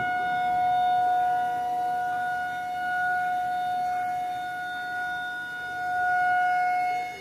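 Outdoor tornado warning siren sounding a steady, unwavering tone. Its loudness swells and fades several times, with a deep dip near the end, as the rotating siren turns toward and away from the listener.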